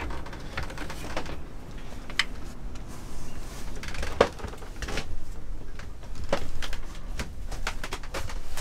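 Scattered knocks and clicks of footsteps and handling as a person climbs down wooden companionway steps into a small sailboat's cabin.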